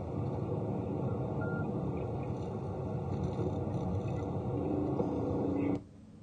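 Steady, low-pitched road and engine noise inside a Chevrolet Tahoe's cabin as it drives along, cutting out abruptly near the end.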